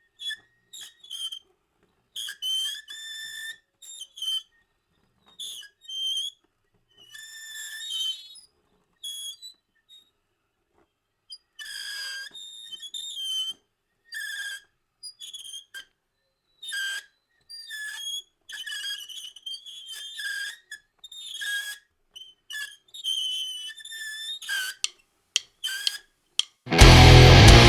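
High-pitched whistle-like squeals in short irregular bursts with silences between them. About a second before the end, loud distorted grindcore music crashes in abruptly.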